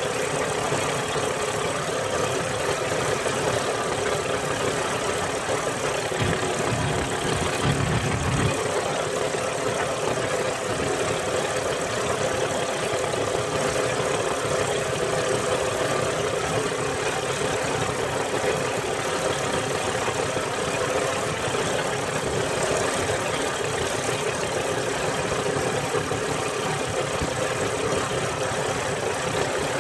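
Inboard engine of a motorized outrigger boat (bangka) running steadily while under way, mixed with the rush of wind and water. A brief low rumble swells about six seconds in.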